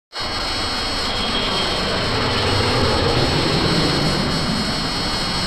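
Custom MechaGodzilla flying sound effect: a steady jet-engine-like roar with a thin, steady high whine on top, starting abruptly just after a brief silence.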